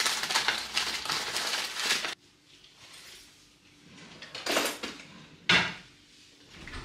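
Food wrapping crinkling and rustling for about two seconds, then it cuts off abruptly. A few knocks and clatters of dishes and cutlery on a table follow, the sharpest just past halfway.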